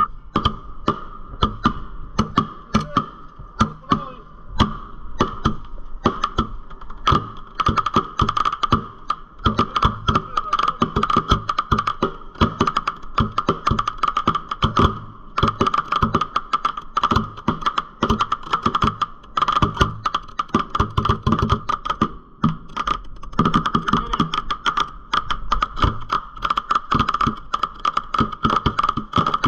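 Fireworks aerial shells launching from mortars and bursting overhead in rapid succession: a dense, continuous run of sharp bangs and crackles, several a second. A steady high-pitched tone runs underneath.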